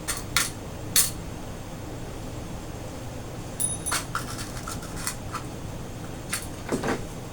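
A few light, scattered clicks and taps from handling fabric and dressmaker's pins, one with a brief thin metallic ring, over a low steady background hum.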